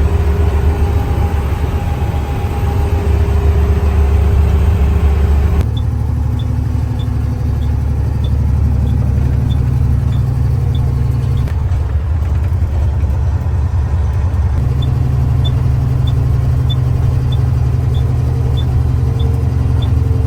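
Loaded beet truck's engine running with a steady low hum. About six seconds in the engine sound drops, and a light ticking starts at about two ticks a second; it stops for a few seconds midway, then resumes.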